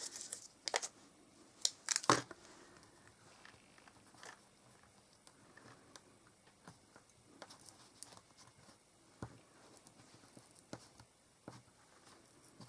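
Faint rustling of card and craft materials being handled, with a few sharp clicks in the first couple of seconds and scattered small ticks after.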